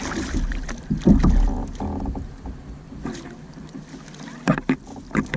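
Wind rumbling on the microphone, with a rush of noise at the start and scattered knocks of handling in a kayak.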